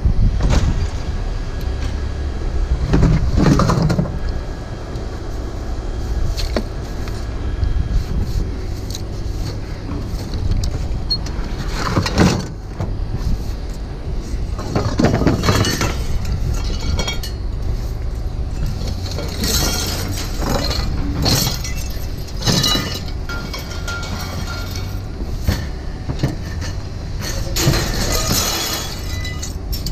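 Scrap metal pieces clanking and clattering as they are tossed onto a pile, in scattered bursts over a steady low rumble.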